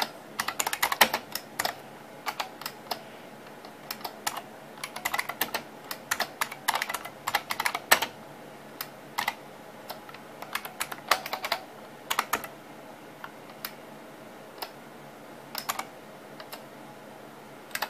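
Typing on an IBM PS/2 computer keyboard: runs of quick key clicks in uneven bursts, with short pauses between words, thinning out near the end.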